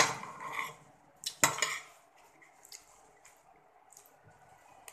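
A metal spoon scraping and clinking against a ceramic plate as rice is scooped up: a sharp clink and scrape at the start, and a second, louder scrape about a second and a half in, then only faint small clicks.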